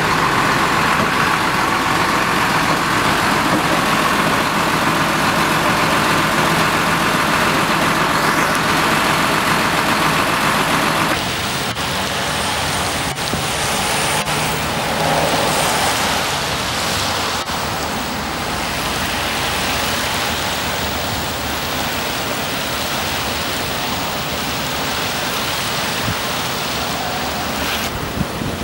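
A truck engine idles in the rain. About eleven seconds in the sound changes abruptly to tow trucks and cars driving past on a wet road, in an even hiss of tyres and rain.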